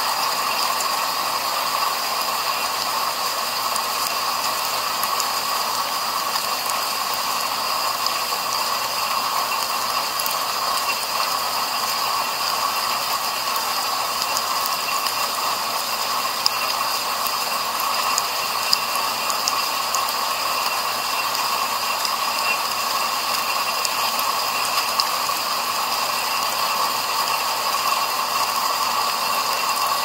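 A dishwasher in its wash cycle, heard from inside the tub: a steady rush of water spraying against the racks and walls, with a few sharp ticks. The spray arms are clogged and not spinning.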